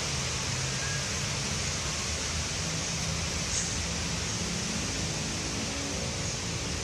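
Strong wind blowing through trees: a steady rushing noise of tossing leaves and branches.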